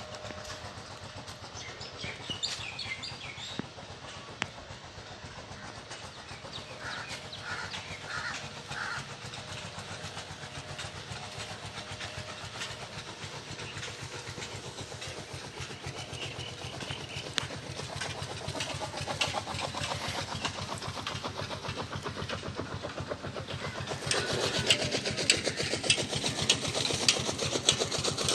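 A motor running steadily with a rapid, even beat, getting louder about 24 seconds in.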